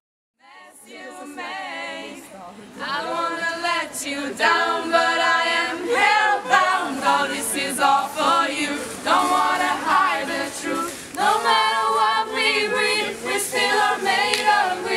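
A small group of young men's and women's voices singing a cappella in harmony, with no instruments. It fades in just after the start and grows fuller about three seconds in.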